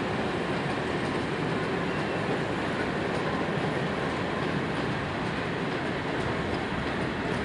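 Long freight train of tank wagons rolling past: a steady rumble of steel wheels on rail, with faint clicks from the wheels running over rail joints.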